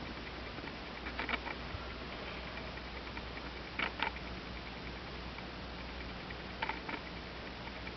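Light clicks from handling, in three quick pairs a couple of seconds apart, over a steady faint hiss.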